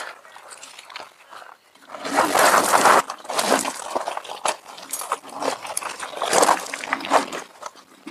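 Electric trike riding over rough desert gravel: tyres crunching on loose stones and the frame rattling, in irregular bursts, loudest about two to three seconds in.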